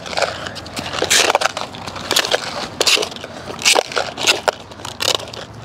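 Clear plastic cup scraping and crinkling against wet concrete as spilled strawberry pieces are scooped back into it by hand, a run of irregular crunchy scrapes.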